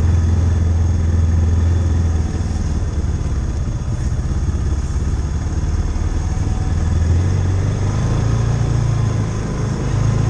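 Side-by-side UTV engine running under way, heard from inside the cab. Its pitch drops about two seconds in and climbs again near the end as the engine speed changes.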